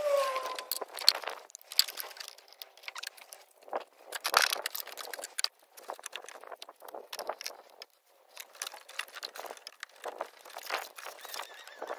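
Irregular clicks, light clinks and rustling from hands handling hoses and metal fittings during engine work, with a short squeak right at the start.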